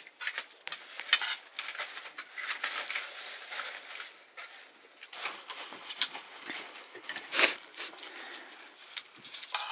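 Metal spoon clinking and scraping on a steel plate of rice during eating, in scattered short clicks and scrapes; the loudest is a brief burst about seven seconds in.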